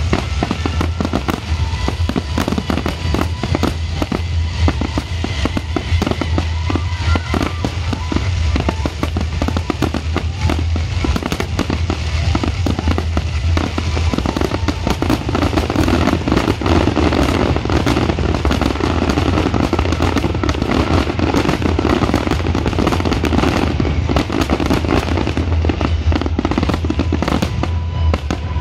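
Dense fireworks barrage: aerial shells bursting and crackling in rapid succession, many bangs overlapping, with music playing under them. The barrage grows somewhat louder about halfway through.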